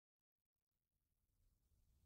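Near silence: a dead-silent gap, then, a fraction of a second in, a very faint noisy background slowly starts to fade in.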